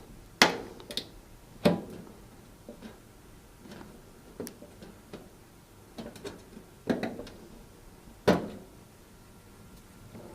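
Hand tool prying the rivets out from under a cooker's hob top: irregular clicks, taps and knocks as the tool is worked in the gap and the parts shift, with the loudest knocks just after the start and about eight seconds in.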